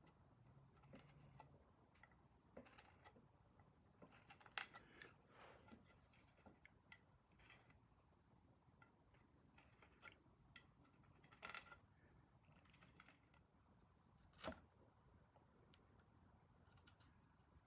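Near silence with faint, scattered taps and clicks of wooden chair parts being handled during hand-fitting, and a few sharper knocks, the clearest about a third of the way in, about two-thirds in, and near the end.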